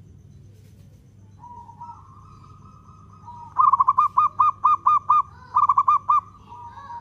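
Zebra dove (local perkutut) singing: a soft trill, then from about halfway two quick runs of loud, clipped notes with a short break between them, easing back into a softer trill near the end. The clipped notes are the perkutut's 'ketukan', its knocking song notes.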